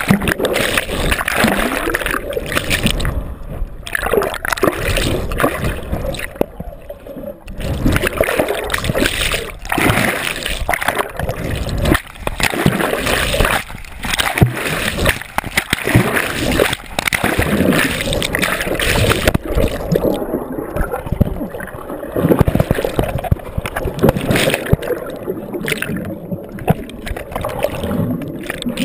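Water splashing, sloshing and gurgling close to a camera as snorkelers swim hard at the surface, fins kicking, the camera dipping in and out of the water. The sound comes in irregular loud surges.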